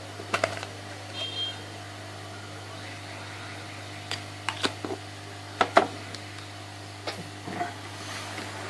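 Scattered light clicks and taps of small repair tools being handled at the workbench, over a steady low electrical hum.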